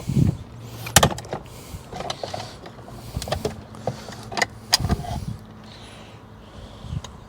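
Irregular clicks, knocks and light rattles of tools and plastic and metal parts being worked loose from a car's gear-shifter housing under the centre console, over a faint steady hum.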